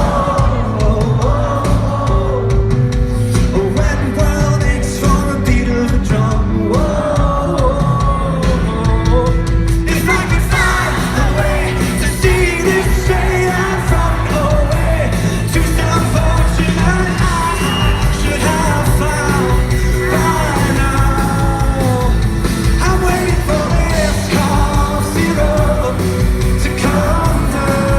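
Live pop-rock band playing, with a male lead vocal and the audience yelling along.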